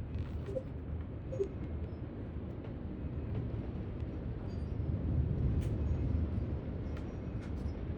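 Thunderstorm noise: a steady low rumble that swells about five seconds in, with a few scattered sharp taps from the first hailstones hitting.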